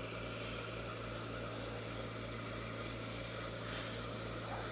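Oxygen concentrator and ozone generator running with a steady low hum and a faint regular pulsing underneath, with the fizz of gas bubbling through a stone in a glass of water.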